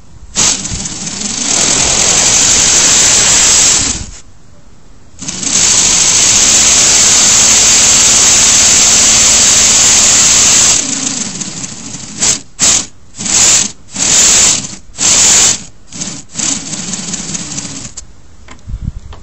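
LEGO Technic pneumatic V8 engine running on compressed air, with a loud hiss of air and a rapid mechanical clatter of its pistons. It runs in two long spells, about three and five seconds long, then gives about six short bursts as the air is cut in and out.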